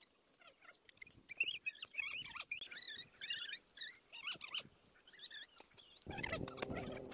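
Young poultry peeping: a busy jumble of short, high chirps. About six seconds in, a lower, steadier pitched call joins them.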